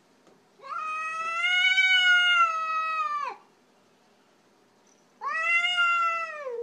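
Domestic cat giving two long, drawn-out yowls, the second falling in pitch as it ends: an angry warning call at a strange cat on the other side of a window.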